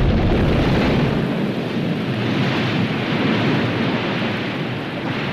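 Volcanic eruption: a loud, steady rushing noise with a deep rumble underneath that drops away about a second in.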